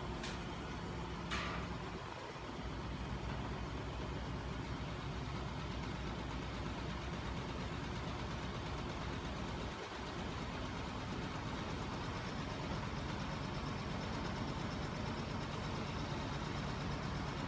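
Homemade crankshaft-and-flywheel magnet engine rig, driven by a 12 V electric motor and turning small 24 V scooter motors as generators, running steadily with a fast even rhythm. Two brief high ticks sound near the start.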